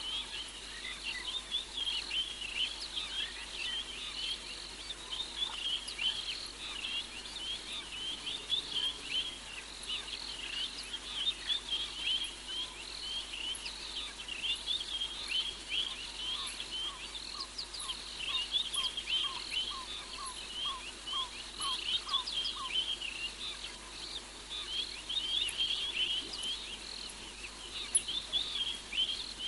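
Dense night chorus of high, rapid chirping calls from small animals of the bush, with no break. From a little past halfway to about three quarters through, a separate lower call repeats evenly, roughly two notes a second.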